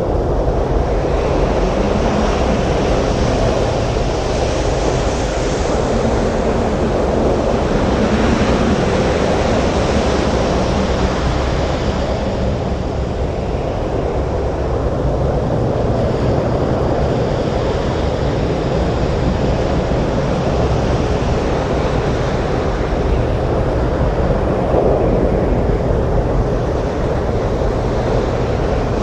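Storm surf with wind: waves breaking on a beach in a steady, dense rush, swelling slightly now and then.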